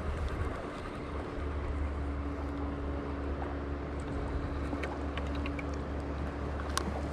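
A steady low motor drone with a steady hum over a noisy haze, and a few small clicks about five and seven seconds in.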